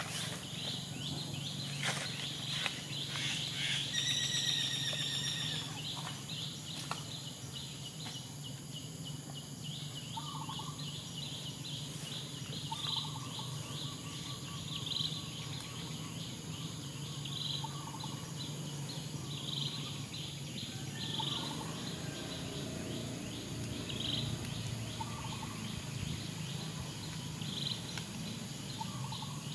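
Forest ambience: insects chirping in a dense, steady high pulse, with short bird calls every few seconds and a clear whistled call about four seconds in. A low steady hum runs underneath.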